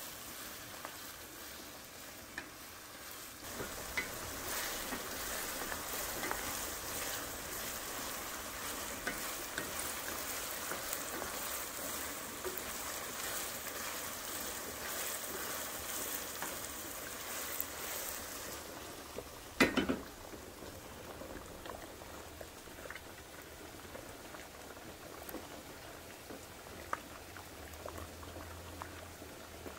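Ground beef and onion frying in a skillet, sizzling as it is stirred with a wooden spatula. A sharp clank comes about two-thirds of the way through, then a quieter hiss of a pot of water boiling with lasagna noodles in it.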